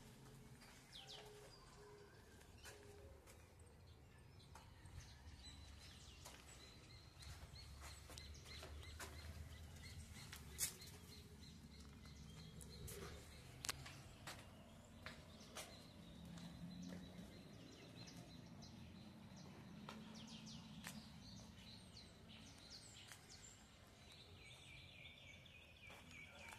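Near silence: quiet outdoor ambience with faint bird chirps and a few light clicks, the sharpest about ten seconds in.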